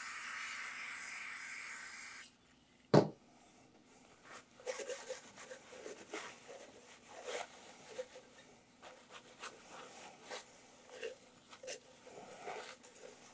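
An aerosol can of brake cleaner sprays in a steady hiss for about two seconds, followed about a second later by a single sharp knock, the loudest sound. After that a paper towel rubs and wipes across the deck of an aluminum cylinder head in short, uneven scrubbing strokes, clearing off the film left by engine degreaser.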